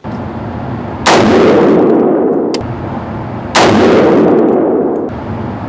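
Two shots from a BCA BC-15 AR-15 rifle in 5.56, about two and a half seconds apart. Each is a sharp crack with a long echoing tail in an indoor shooting range.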